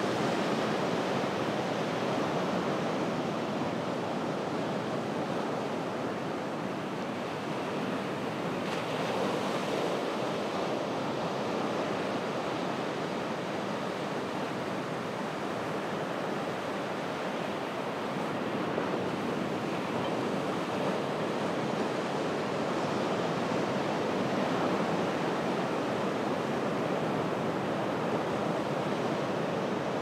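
Ocean surf washing onto a beach at low tide: a steady rush of breaking water that swells and eases gently in loudness.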